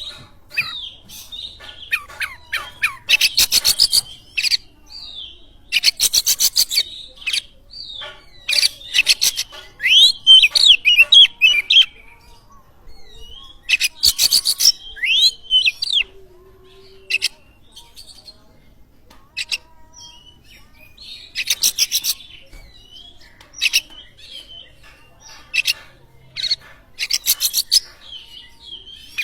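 Oriental magpie-robin (kacer) singing. Bursts of fast, rattling repeated notes alternate with sliding whistled phrases, each a second or two long, with short pauses between them.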